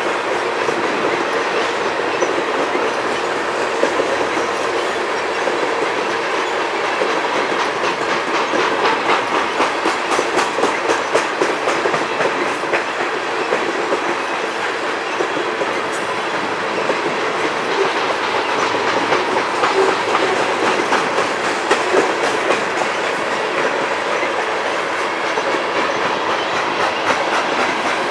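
Union Pacific grain train's freight cars rolling past without a break: a steady rumble of steel wheels on rail, with rapid clicks as the wheels cross rail joints.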